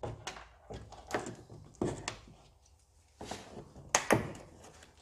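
Trim clips being prised out of a Honda CR-X's rocker sill with a forked clip-removal tool, popping loose in about half a dozen sharp snaps and knocks, two of them close together near the end.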